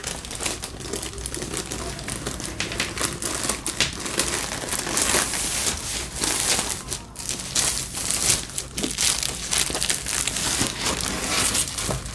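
Thin clear plastic sleeve crinkling and rustling without a break as a rolled canvas is worked back into it, a dense crackle of many small crackles.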